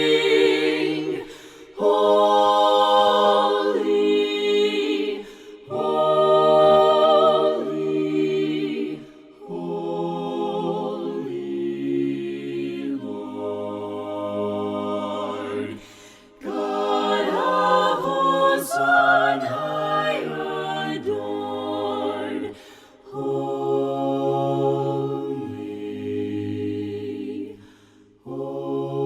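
Voices singing a slow hymn a cappella in harmony, without instruments, in long held chords broken by short breaths every few seconds.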